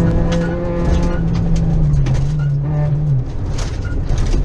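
Suzuki rally car's engine heard from inside the cabin, holding steady revs, then dropping in pitch about two seconds in and falling away near three seconds as the driver comes off the throttle, with gravel clicking against the car.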